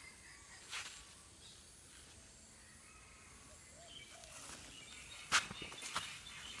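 Quiet outdoor ambience with faint bird and insect sounds, and a few sharp clicks or rustles: one under a second in and several more in the last second and a half.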